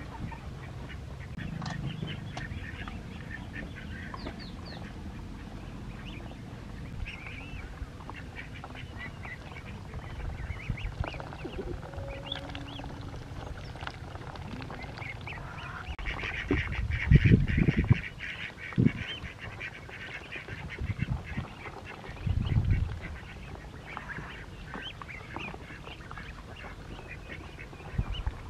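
Ducks calling, with many short high peeps throughout and a few lower quacks. A run of loud low thuds comes a little past halfway, and another about three quarters of the way in.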